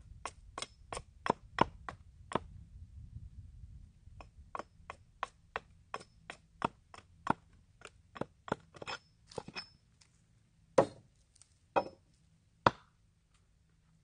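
A small hatchet striking wood in quick, light taps, about two or three a second, as kindling is split. There is a short pause about two seconds in, then three heavier blows near the end.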